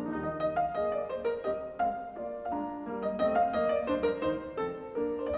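Background piano music, a run of separate notes struck a few times a second.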